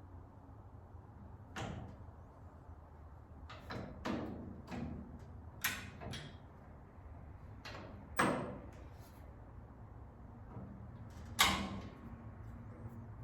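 Irregular knocks and clunks of metal parts being handled and set in place, about nine in all, some ringing briefly, the loudest about two-thirds of the way through and near the end.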